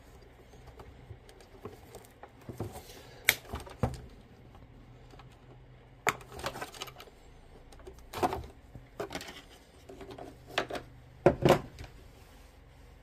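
Sharp clicks, knocks and rustles of a circuit board and its wires being worked loose and pulled out of a cordless vacuum's red plastic housing by hand, the loudest knocks near the end.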